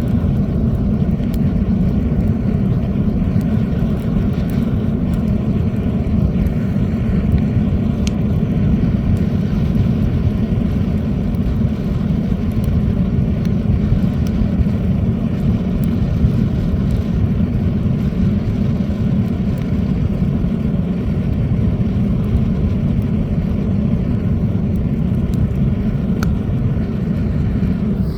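Homemade coal furnace burning hard under a ventilator's forced draft: a steady low rushing of the fire, with scattered sharp crackles and pops from the burning fuel.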